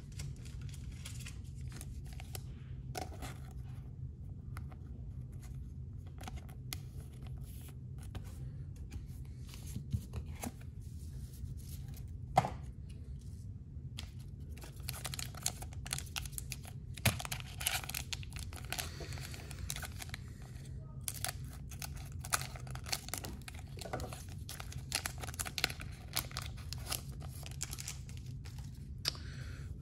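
A foil trading-card pack wrapper crinkling and tearing open, with scattered sharp crackles as the wrapper and cards are handled. The crackling gets busier about halfway through, over a steady low hum.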